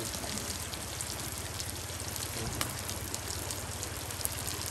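Small whole fish sizzling in a wok over a wood fire: a steady hiss scattered with fine crackles.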